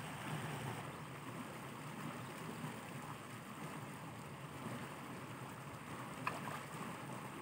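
Steady outdoor background noise with no distinct source, and a single short click about six seconds in.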